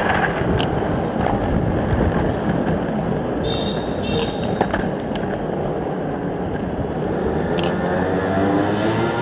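Inline skate wheels rolling over pavement: a steady, rough rumble with a few sharp clicks. A brief high-pitched tone sounds about three and a half seconds in, and a low hum comes in near the end.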